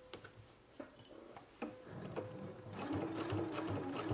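Domestic sewing machine stitching in the ditch along a placket seam: slow and halting at first, a few separate needle strokes with a faint motor hum, then running steadily from about three seconds in.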